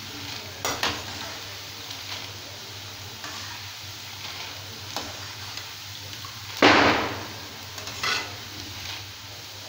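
Boondi deep-frying in groundnut oil in a metal kadai, a faint steady sizzle, while a slotted metal ladle stirs and scrapes through them a few times. The loudest scrape comes about two-thirds through.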